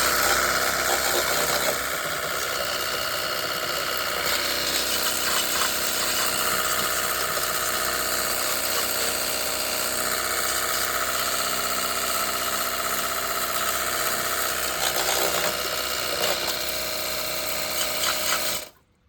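Portable car pressure washer running, its pump motor whining steadily under the hiss of the water jet as it sprays mud off the car; it cuts off suddenly near the end.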